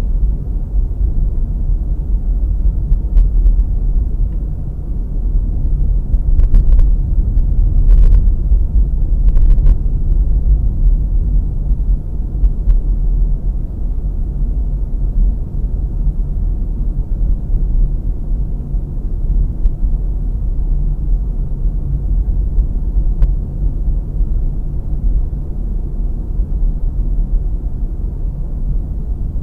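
Car driving, heard from inside the cabin by a dashcam: a steady low rumble of engine and tyres on the road, with a few brief knocks about seven to ten seconds in.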